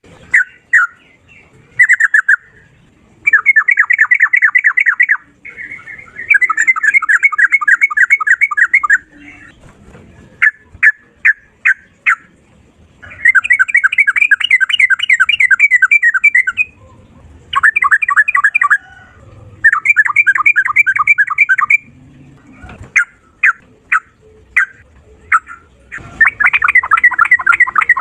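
Yellow-vented bulbul (trucukan) singing loud, rapid rattling phrases of fast repeated notes, the ropel style. Each phrase lasts one to three seconds, with short runs of single notes in between.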